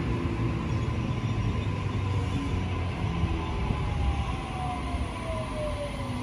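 Sydney Trains Waratah double-deck electric train moving along the platform: a steady low rumble of wheels on rails, with a thin whine that falls in pitch over the last few seconds.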